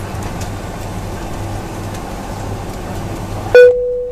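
Steady low cabin hum inside a Boeing 757-200. About three and a half seconds in it is broken by a single loud cabin chime that rings for about a second. The hum drops away sharply as the chime sounds.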